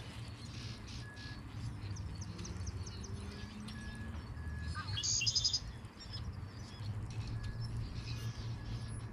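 Wild songbirds chirping, with a louder burst of rapid high chirps about five seconds in, over a low steady rumble.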